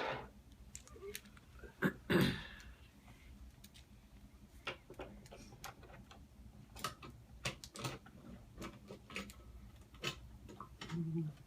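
Irregular light clicks and taps of plastic toy train-set pieces being handled, with a louder knock about two seconds in.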